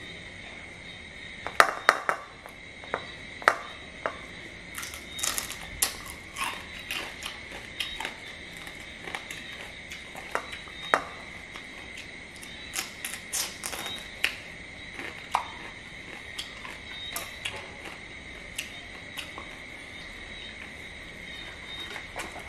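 Cooked crab shells cracked and picked apart by hand, with chewing: a cluster of sharp cracks a couple of seconds in, then scattered snaps, clicks and crunches. A steady high-pitched background tone runs underneath.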